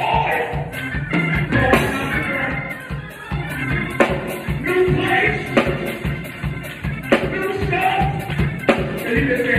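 Up-tempo gospel music: singing over a band with a pulsing bass and a quick, steady high percussion beat.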